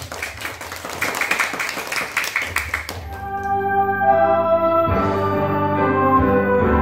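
Children clapping for about three seconds. Then music with steady held notes starts suddenly.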